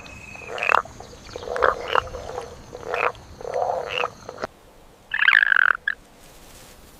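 Short animal calls repeated about once a second, stopping abruptly after about four and a half seconds, then one louder, higher-pitched call followed by a brief short one.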